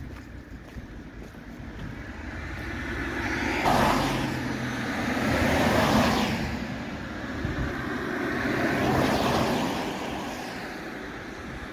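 Road traffic: cars passing one after another, the engine and tyre noise swelling and fading three times, loudest about four, six and nine seconds in.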